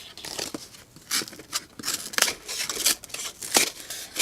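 A folding knife's S35VN steel tanto blade slicing through cardboard in a series of short strokes, the stronger ones about a second apart.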